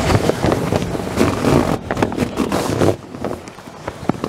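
Stiff vinyl RV awning fabric rustling and crackling as it is pulled along the awning's roller tube, louder for about the first three seconds and then softer, with wind buffeting the microphone.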